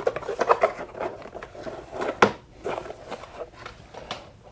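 Packaging and small parts being handled: a run of light irregular rustles and clicks, with one sharper knock a little over two seconds in.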